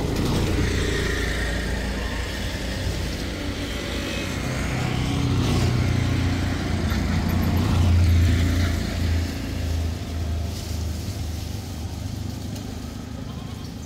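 A motor vehicle's engine running as it passes close by, a low rumble that builds to its loudest about eight seconds in and then fades.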